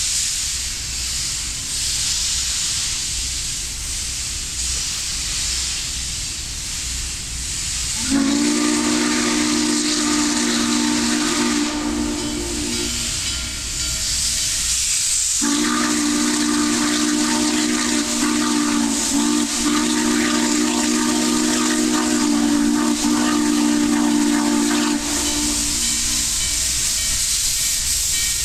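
Norfolk & Western 611, a J-class 4-8-4 steam locomotive, approaching with a steady hiss of steam. About eight seconds in, its chime whistle sounds a chord of several notes for about five seconds, then after a short break sounds again for about ten seconds.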